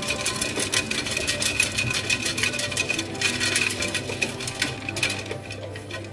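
Bread maker kneading dough: the motor hums steadily while the paddle turns the dough ball in the metal pan, with a rapid, uneven run of clicks and knocks as dough and chocolate chips hit the pan. It gets a little quieter near the end.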